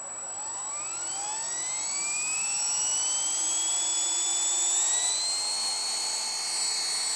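Esky King 3 electric RC helicopter spooling up: a high-pitched motor whine that rises steadily in pitch and levels off about five seconds in, over a steady high tone.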